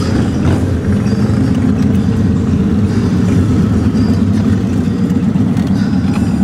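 Steady low rumble of a 1955 Chevrolet Bel Air on the move, engine and road noise heard from inside the cabin.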